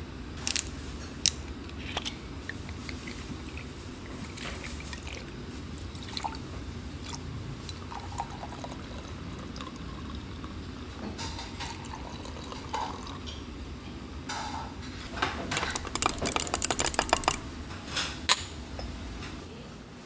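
Water dripping and pouring over a steady low hum, with scattered sharp clicks. About fifteen seconds in comes a fast run of sharp clicks lasting two or three seconds, then one more sharp click.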